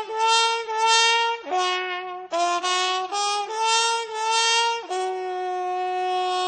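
A single wind instrument plays a melody of short separate notes, then settles on a long held lower note about five seconds in.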